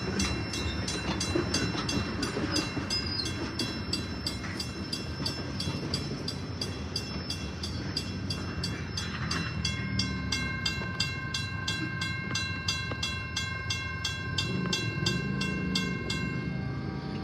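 Freight train of tank cars rolling past with a low rumble, while the grade-crossing bell rings steadily at about three strokes a second. A steady high whine joins about halfway through. The bell stops near the end, once the last car has cleared the crossing.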